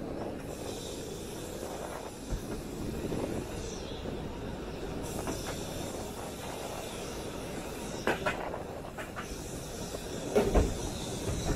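Electric tram running along its track, heard from the open upper deck: a steady rumble of wheels on rail with a few sharp clicks and knocks, about eight seconds in and again near the end.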